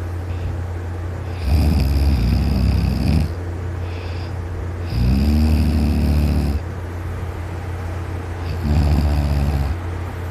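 A man snoring very loud in his sleep while lying on his side: three long snores about three and a half seconds apart, over a steady low hum.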